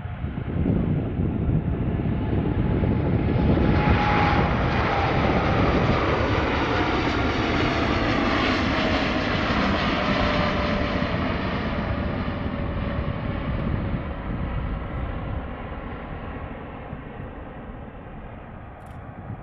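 Jetstar Boeing 787-8's twin turbofan engines at takeoff power as the airliner departs. The loud jet noise builds over the first few seconds, peaks, then fades away, with a whine that falls in pitch as the aircraft passes.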